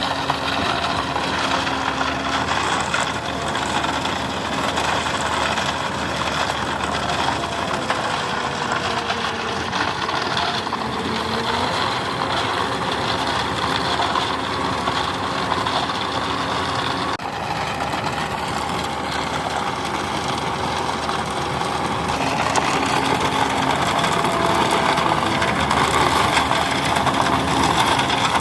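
Heavy construction-machine engine running steadily, growing somewhat louder in the last several seconds.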